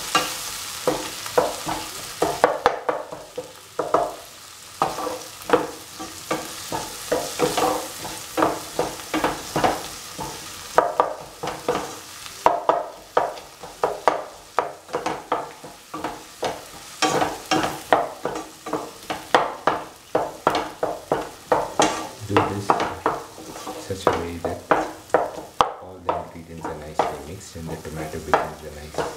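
Spatula scraping and knocking against a frying pan about twice a second, stirring and crushing tomato pieces, onions and red chillies frying in oil, over a steady sizzle as the tomatoes cook down to a paste.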